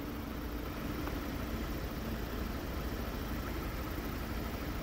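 An engine running steadily: a low rumble with a faint, even hum.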